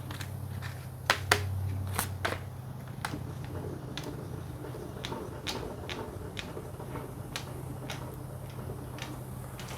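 Steady low hum of a milling machine, with scattered sharp clicks and taps from handling the machine; the two loudest clicks come about a second in.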